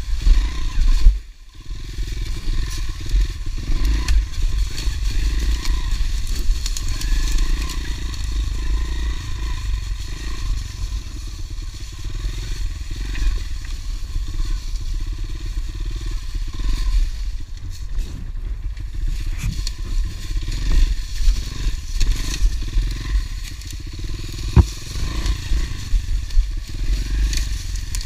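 Honda CRF110 pit bike's small four-stroke single-cylinder engine running at low speed off-road, with dry fallen leaves and sticks crunching and scraping under the tyres. The sound drops away sharply for a moment about a second and a half in, and a single sharp crack comes near the end.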